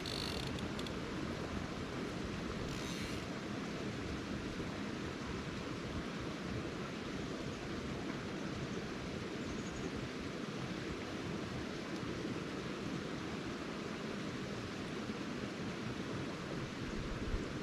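Steady rush of a small mountain creek's running water, with faint brief rustles near the start and about three seconds in.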